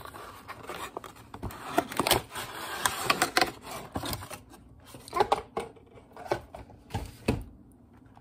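A cardboard gift box and its paper and foil packets being handled: rustling and scraping with scattered sharp taps and knocks, busiest between about two and three and a half seconds in.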